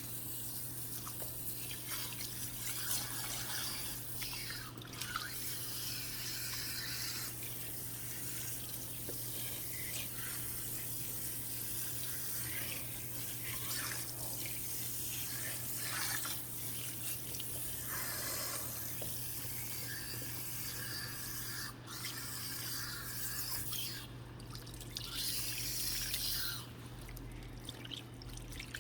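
Water running and splashing over hair in a salon shampoo bowl as chemical relaxer is rinsed out, with irregular dripping and splatter. A steady low hum lies underneath.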